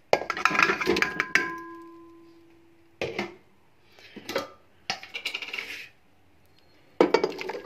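Metal pressure cooker pot clattering as raw minced beef is tipped in: a quick run of knocks in the first second and a half leaves the pot ringing with a clear tone, then a few shorter knocks and scrapes follow.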